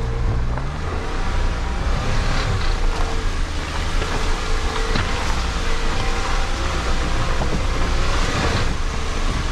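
Car engine running at low speed while the tyres grind over a rough gravel and rock dirt track, with a few sharp knocks from stones or the suspension.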